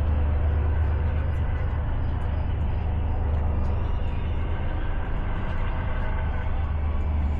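A steady low rumble under an even wash of outdoor noise, with no distinct event standing out.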